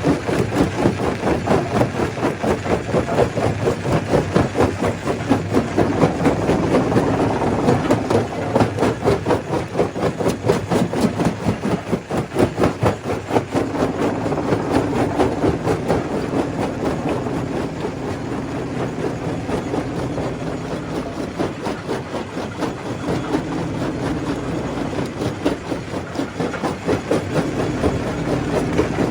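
Stone crusher machine running, with a fast, even clatter of rock being crushed over the steady drone of the machine.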